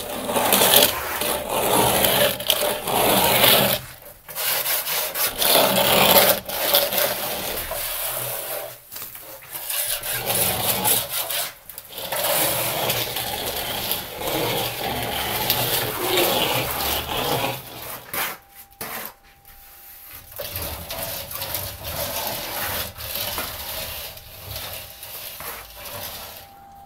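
Plastering tools scraping and rubbing over a plaster wall in repeated strokes, with a few short pauses.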